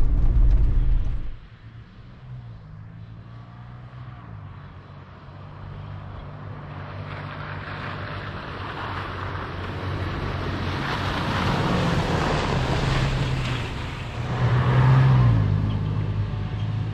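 Toyota FJ Cruiser's 4.0-litre V6 running as the truck drives a trail of snow, ice and mud. A loud low rumble drops away about a second in, then a rushing hiss builds through the middle, with a surge about fifteen seconds in.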